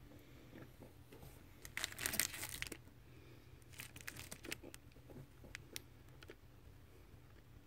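Faint crackling and crunching of a crumbly oat grain bar being broken apart by hand, in a few short bursts, the loudest about two seconds in.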